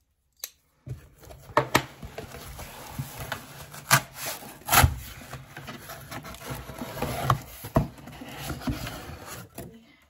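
Cardboard shipping box being opened by hand: steady rubbing and scraping of cardboard, broken by several sharp snaps and knocks. It starts about a second in.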